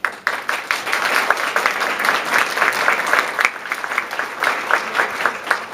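Audience applauding, starting suddenly and dying away near the end, with sharp individual claps close by standing out.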